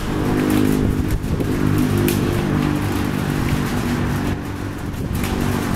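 Boeing 737 MAX 8's CFM LEAP-1B jet engines running at low taxi power, a steady hum with a few low tones over a rushing noise.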